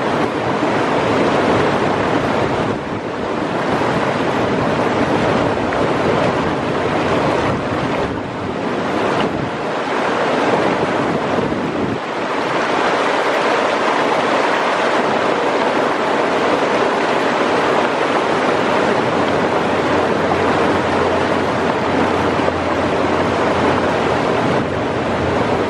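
Fast mountain river rushing over rocks in whitewater rapids: a steady, loud wash of running water.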